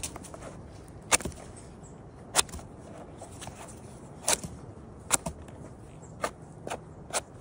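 Knife blade cutting and shaving the dirt-caked base off a firm king bolete (porcini) stem: about eight short, sharp strokes, roughly one a second.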